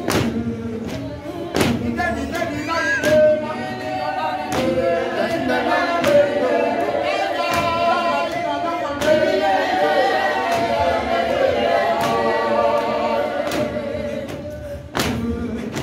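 Congregation singing together without instruments, with a sharp knock marking the beat about every second and a half.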